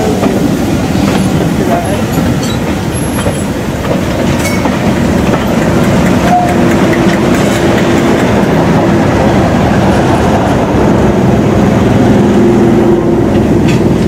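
Passenger train rolling slowly past at close range: coach wheels clicking over rail joints, then a diesel locomotive's engine running as it goes by, its steady hum louder in the second half.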